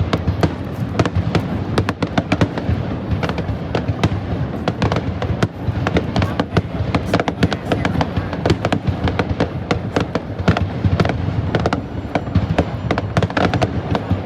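Fireworks display: many aerial shells bursting in quick, irregular succession, several bangs a second, over a steady background din.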